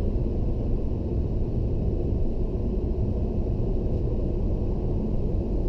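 Steady low rumble of road and engine noise heard inside a car's cabin while it cruises along a motorway.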